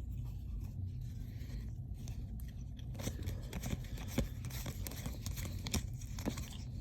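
Trading cards being handled: card stock sliding and snapping. There are a few sharp clicks from about three seconds in, over a low steady hum.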